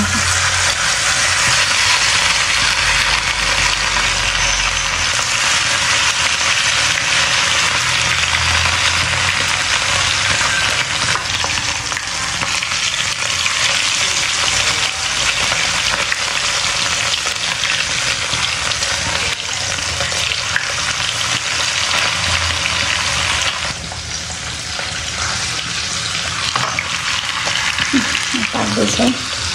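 Chunks of marinated meat frying in hot oil in a pan, a loud steady sizzle, with tongs turning the pieces now and then. The sizzle eases slightly about three-quarters of the way through.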